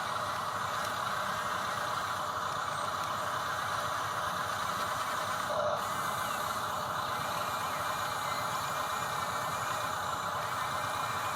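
Small electric motors and plastic gearing of radio-controlled model construction machines whirring steadily.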